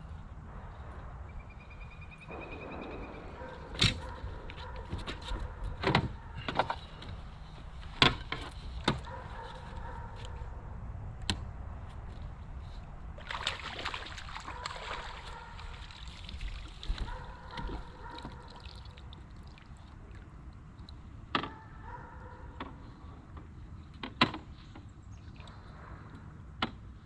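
Water sloshing around a small fishing boat, with sharp knocks scattered through, the loudest a few seconds apart near the start and one near the end.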